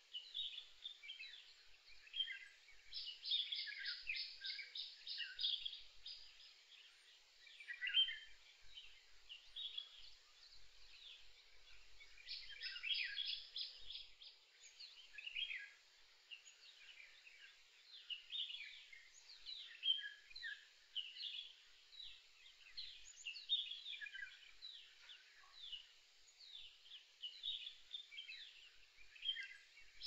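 Several birds singing and calling: a steady stream of short chirps and downward-sweeping notes. A fast trill of evenly repeated notes comes about three seconds in, and another about twelve seconds in.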